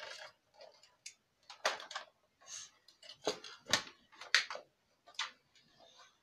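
Irregular sharp plastic clicks and knocks from a Nerf blaster's dart magazine being handled and fiddled with.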